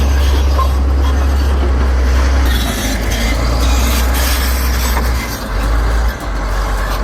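Heavy tracked construction machinery working: a loud, deep engine rumble with metallic clanking and squealing, easing off in steps in the last few seconds.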